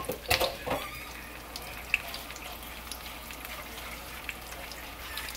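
Battered green bean bundles frying in hot oil in a skillet, a steady sizzle with scattered crackles. A few knocks in the first second.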